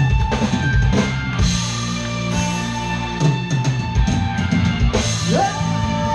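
Live rock band playing an instrumental passage, with a drum kit keeping the beat under sustained guitar and keyboard-like chords. Near the end a note slides up and is held.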